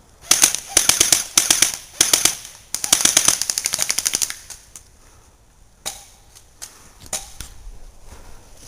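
Airsoft guns firing in rapid automatic bursts, three bursts of fast clicking shots in the first four seconds, then a few single shots.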